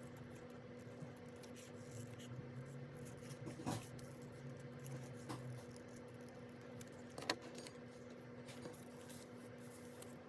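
Faint desk work with stationery on a ring-binder planner: scattered small clicks, taps and rustles, two sharper clicks about four and seven seconds in, over a faint steady hum.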